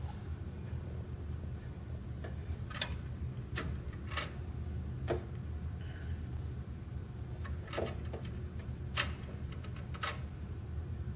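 Scattered light clicks and taps of hands handling the plastic and metal parts of a copier's paper-feed unit, at uneven intervals over a steady low hum.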